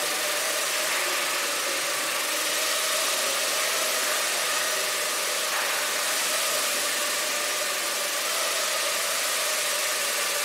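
Small quadrotor drone's motors and propellers running in flight, a steady whir with a held tone whose pitch wavers slightly.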